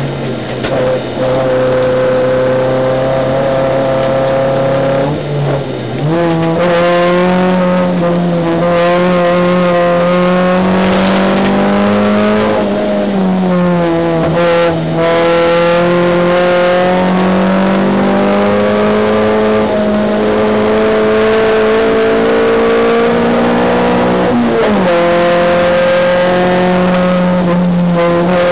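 A competition car's engine at high revs under hard acceleration, heard from inside the cabin. The pitch climbs steadily and steps with a gear change three times: about five seconds in, near the middle and near the end.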